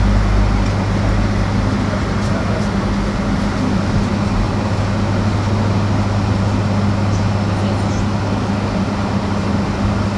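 Electric bus in motion, heard from inside the cabin: steady road and tyre rumble with a constant low hum.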